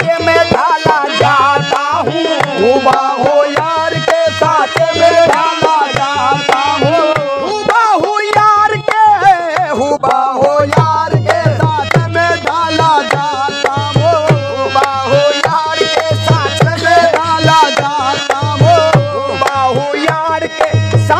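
Qawwali music led by tabla drumming, with a melodic line that slides up and down in pitch over it. The deep drum strokes drop out for a few seconds in the middle, then come back.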